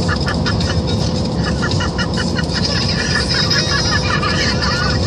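Steady road and engine noise inside a moving car's cabin, with runs of quick, repeated chirping squeaks over it, several a second.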